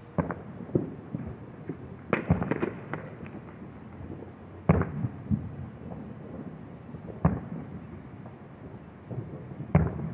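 Aerial firework shells bursting: a sharp bang every two to three seconds, each trailed by a rolling echo, with a quick cluster of several pops about two seconds in.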